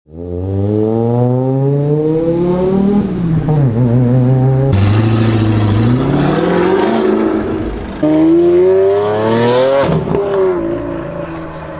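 Car engines revving and accelerating, pitch climbing and dropping repeatedly, with abrupt jumps to a different engine sound about five and eight seconds in.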